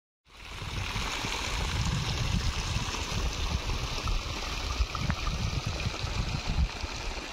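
Outdoor noise that cuts in abruptly: gusts of wind buffet the microphone, with a low, uneven rumble, over a steady rushing hiss like running water.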